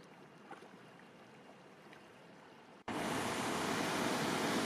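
Rushing water, a loud steady rush that cuts in abruptly about three seconds in, after a few faint ticks over low hiss.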